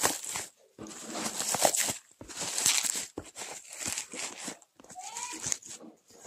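Plastic bubble wrap around a boxed hand mixer crinkling and rustling in irregular bursts as it is handled, with short pauses between.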